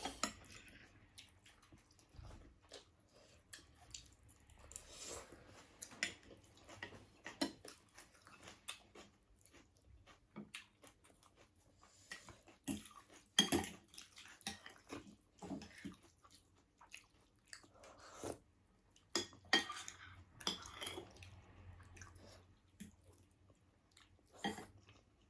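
Close-miked mukbang eating: chewing and biting in many short, irregular mouth sounds, with occasional clinks of utensils against a dish.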